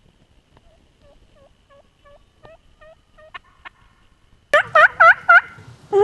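Turkey yelping: a faint run of about ten yelps, then about four and a half seconds in a much louder, closer series of four yelps.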